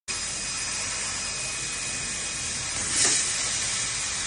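CNC laser cutter cutting metal, giving a steady hiss that swells briefly about three seconds in.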